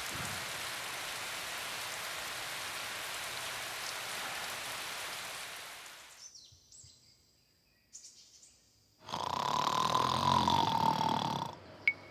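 Steady rain falling, fading away about five seconds in. After a few seconds of near quiet, a loud snore starts about nine seconds in and lasts a couple of seconds.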